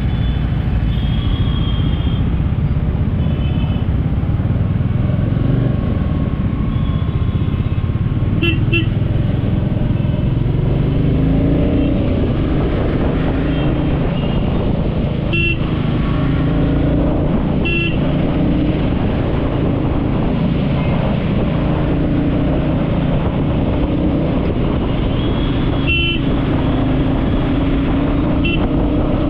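Road traffic: a steady rumble of vehicle engines and road noise, with several short horn toots scattered through.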